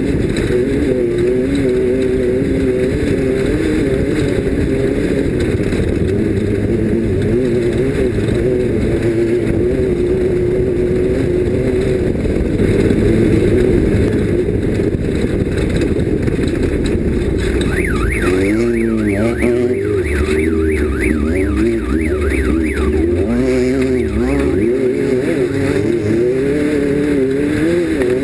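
Off-road race vehicle's engine running hard, its pitch fairly even through the first half. From a little past halfway it revs up and down over and over.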